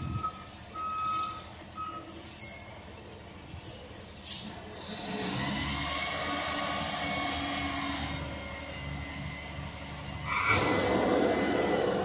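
Dump truck's backup alarm beeping for the first couple of seconds, then its diesel engine pulling as it creeps, with a sudden sharp hiss of air brakes about ten and a half seconds in.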